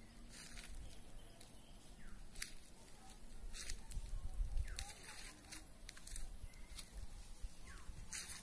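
Footsteps crunching through dry fallen leaves, a short crackle every half second to second at an uneven pace. A low wind rumble on the microphone swells about four seconds in.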